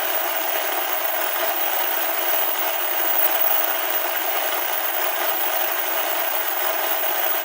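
Steady broadcast static, an even hiss with no bass, that cuts off abruptly into silence at the end: the station's signal dropping off the air.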